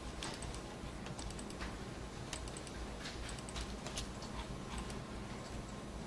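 Irregular clicks of a computer keyboard and mouse, over a steady low hum.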